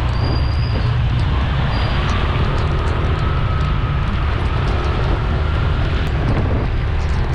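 Motor scooter riding through rain: the engine runs steadily under a heavy, constant rush of wind and rain noise, with a deep rumble from wind buffeting the microphone.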